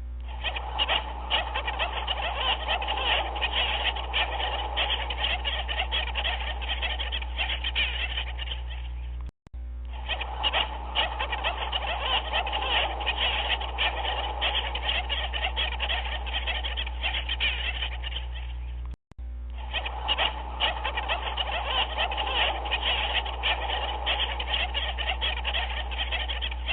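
Dense chorus of many overlapping animal calls over a steady low hum, a looped recording that drops out briefly and restarts twice, about every nine and a half seconds.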